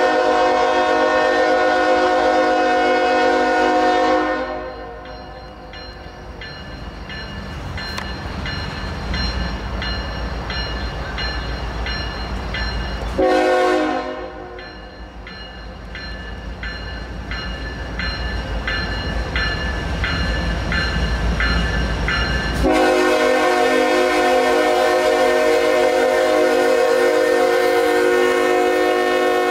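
Norfolk Southern GE ES44AC diesel locomotive horn sounding for a grade crossing: a long chord that ends about four seconds in, a short blast near the middle, then a long blast from about three-quarters of the way through. Between the blasts a grade-crossing bell rings at about two strikes a second, and the low rumble of the approaching locomotive grows.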